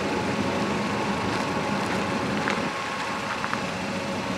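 Steady low engine rumble, like a motor vehicle idling.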